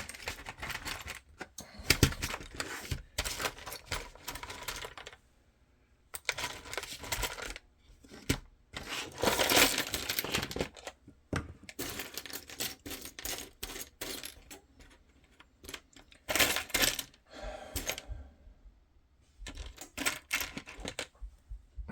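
Irregular clicking and clattering of small hard parts being handled and set down on a workbench, in short flurries with brief pauses.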